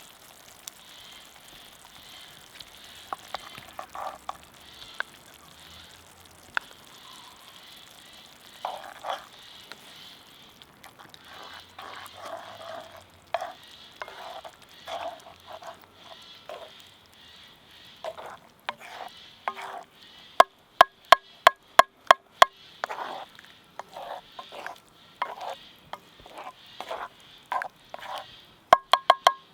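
Food sizzling in a pan over a wood fire while a utensil stirs and scrapes through it in short strokes. About two-thirds of the way through comes a quick run of sharp taps, with a few more near the end.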